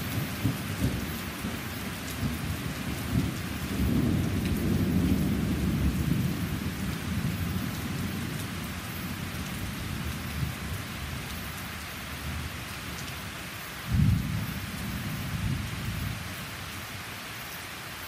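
Steady rain falling on trees and a patio, with rolling thunder rumbling in the first half and a louder peal of thunder about fourteen seconds in that rumbles away over the next couple of seconds.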